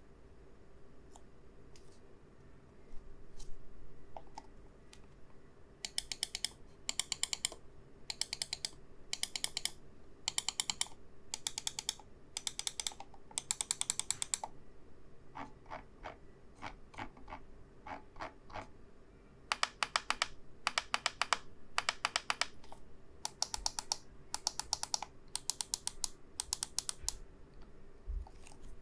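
Ninjutso Ten Air wireless gaming mouse buttons being clicked. First come scattered single clicks, then repeated half-second bursts of very rapid clicking.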